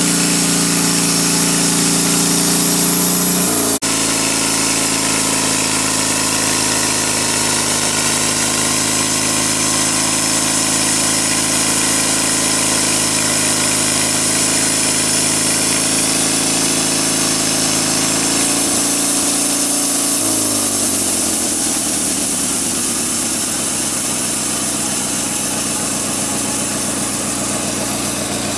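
Engine of a homemade sawmill running steadily. About two-thirds of the way through, its pitch slides down and settles lower. There is a short dropout about four seconds in.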